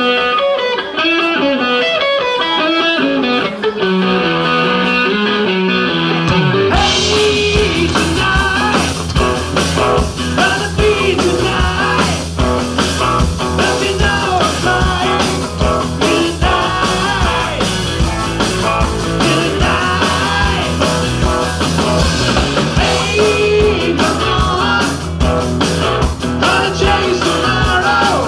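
Live southern country rock band: a single electric guitar plays a run of notes stepping down in pitch, then about seven seconds in the drums and bass come in together and the full band plays on.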